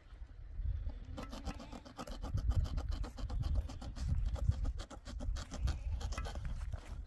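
Blue plastic tarp crackling and scraping as it is pulled and fastened at a wire-mesh fence post, a quick, dense run of rustles starting about a second in, over a low rumble.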